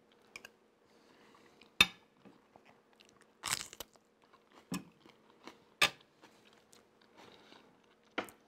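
A man chewing a mouthful of okra stew and rice close to the microphone, with a few sharp crunches about a second apart as he bites into a fresh green chili pepper.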